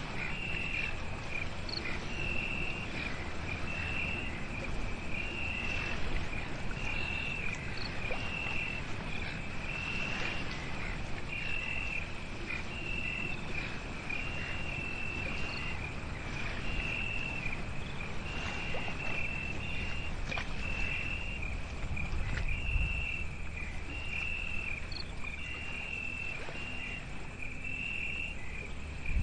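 Crickets chirping in a night chorus: a regular train of high-pitched chirps a little under once a second, over a low steady background rumble.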